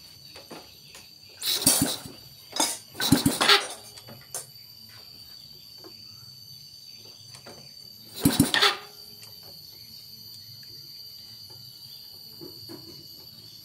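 A steady high-pitched insect trill from crickets, broken by a few short bursts of rustling, scraping handling noise about one and a half, three and eight seconds in, as the motorcycle's wiring is handled.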